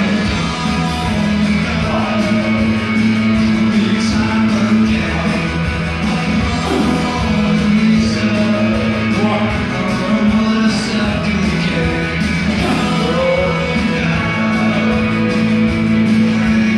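A rock song with singing plays steadily as background music.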